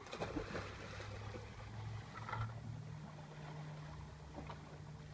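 A low, steady engine hum that shifts in pitch about two and a half seconds in, with a few short faint knocks near the start.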